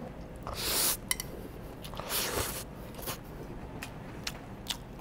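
A mouthful of stir-fried yakisoba noodles slurped in from chopsticks, twice in long hissing pulls about half a second and two seconds in, then chewed with a few sharp clicks.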